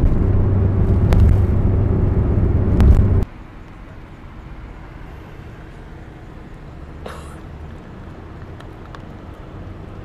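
Mazda van's cabin while driving: a steady engine and road drone with a couple of sharp clicks. It cuts off suddenly about three seconds in to quiet outdoor background.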